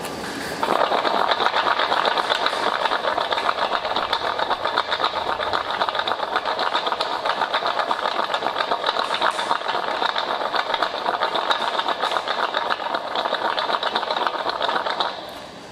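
Chocolate-coated almonds rattling and tumbling against the sides of a large stainless steel bowl as it is shaken, a dense, fast, even clatter that stops shortly before the end. The shaking is the hand tossing that coats the almonds in layers of dark chocolate and cocoa powder.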